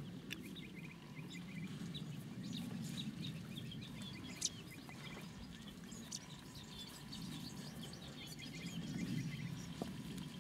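Small birds chirping and trilling, many short calls throughout, over a steady low background rumble; a single sharp click about four and a half seconds in.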